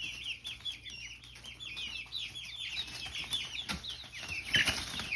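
A brood of four-week-old chicks peeping: many short, high chirps overlapping without a break. A couple of soft knocks come near the end.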